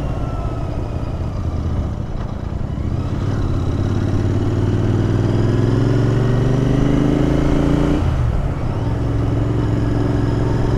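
Royal Enfield Interceptor 650's parallel-twin engine under way, revs climbing for a few seconds, then a sudden drop in pitch about eight seconds in as it shifts up a gear, after which it runs steadily.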